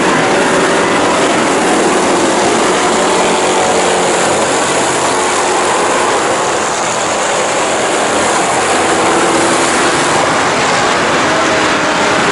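Engines of a pack of Thunder Stock dirt-track stock cars running on the oval, many engines blended into one loud, steady roar.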